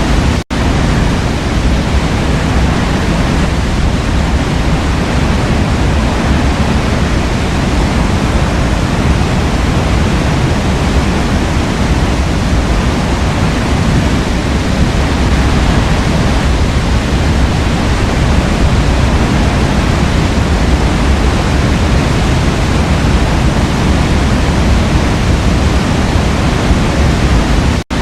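Forest waterfall: water falling and rushing in a steady, unbroken wash of sound, heaviest in the low end. It cuts out for an instant just after the start and again near the end.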